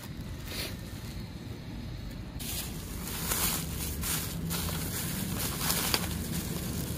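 Thin plastic carrier bag rustling and crinkling as hands dig through it, starting about two and a half seconds in and going on in quick irregular crackles.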